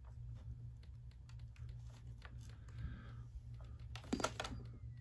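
Keys pressed on a Toshiba Satellite P25 laptop keyboard: scattered single key clicks, then a quick run of louder ones about four seconds in, over a low steady hum.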